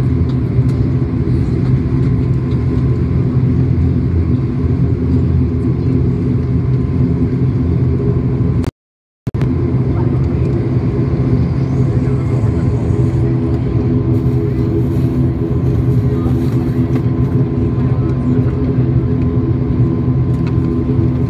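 Jet airliner engine and rolling noise heard from inside the cabin: a loud, steady rumble with a steady hum and a faint whine as the plane moves along the runway. The sound cuts out for about half a second some nine seconds in.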